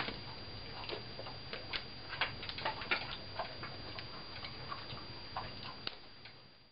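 Wood fire in an open fireplace crackling, with irregular sharp pops at uneven spacing, a few louder ones in the middle, fading out near the end.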